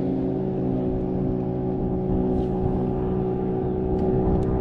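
A boat's motor running with a steady, even hum.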